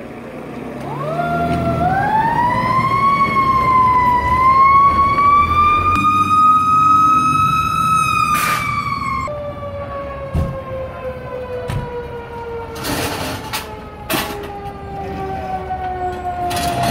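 Fire engine siren wailing, its pitch rising slowly for several seconds. After a sudden break it sounds lower and falls slowly in pitch.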